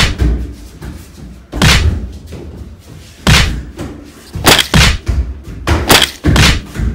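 A child's feet thudding and stomping on a wooden shed floor as he kicks and lands karate moves: a series of heavy thuds, roughly one every second.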